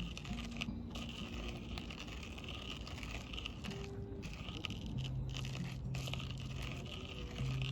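Campfire wood crackling and popping in short irregular clicks, with a few sparse held low guitar notes.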